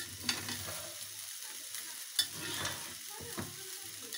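Metal spatula stirring fried rice in a steel pan over the heat, with a light steady sizzle under it and a few sharp scrapes and clacks of the spatula against the pan, the loudest about two seconds in. The sugar just sprinkled on is being mixed into the rice.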